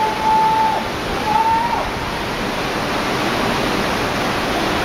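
Tsunami floodwater rushing and churning through a street: a loud, steady rush of water. Over the first two seconds a high held tone sounds twice above it, each time falling away at the end.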